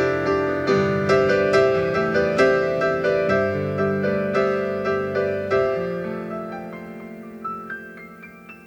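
Solo piano playing a slow, gentle piece, chords and melody notes struck in a steady pulse about two or three a second; from about six seconds in it thins out and fades to a few soft, sparse high notes.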